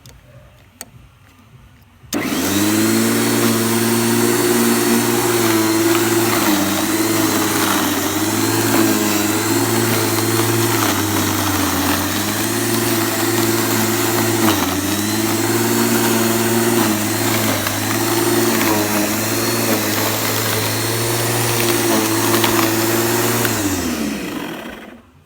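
Challenge 1000W electric lawn mower switched on about two seconds in, its motor running with a steady hum that dips in pitch briefly now and then, then winding down near the end.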